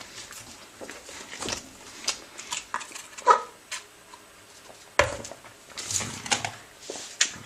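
Paper food packaging being handled: crinkling and rustling with scattered light clicks and taps, and a sharper knock about five seconds in.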